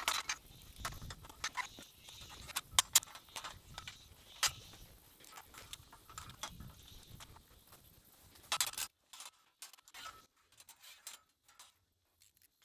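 Metal windmill tower parts being handled and bolted together: scattered sharp clinks and taps of a bolt, washers and turnbuckle being fitted through a steel leg bracket, with a louder cluster of clanks about eight and a half seconds in. After that only a few faint clicks remain.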